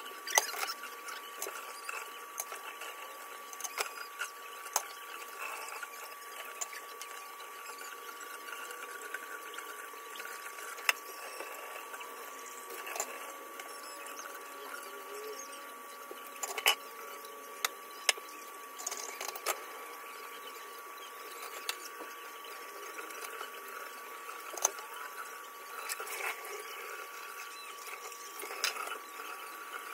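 Dishes being washed by hand at a kitchen sink: scattered short clinks and knocks of dishes and utensils over a faint steady hum.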